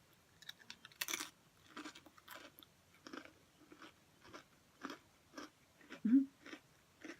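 Close-up of a person chewing thin, crispy pretzel crackers, with one louder bite crunch about a second in followed by steady crunchy chews about twice a second.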